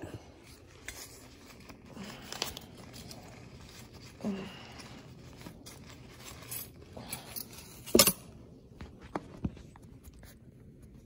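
Items on a breakfast tray being handled and opened: scattered small clicks, rustles and scrapes, with a sharp knock about eight seconds in.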